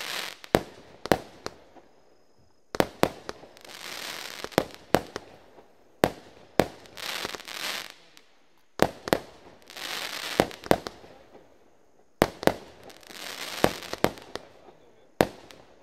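Lesli 'Pyro Parade' 192-shot firework cake firing in volleys about every three seconds. Each volley is a few sharp bangs of shots launching and bursting, followed by a second or two of crackling hiss from the bursting stars.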